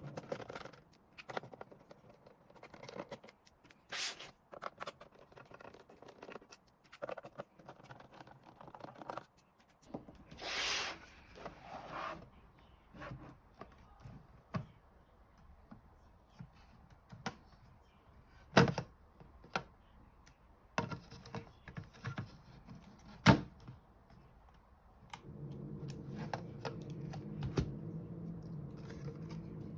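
Small clicks, taps and scraping from hands working on a handheld scan tool's plastic case and internal parts during a battery change, with two louder sharp clicks in the second half. A steady low hum comes in near the end.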